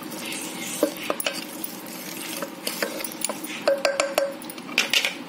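A spoon stirring raw minced mutton, onion and tomato in a metal pressure cooker pot: irregular scraping and clinking as it knocks against the pot.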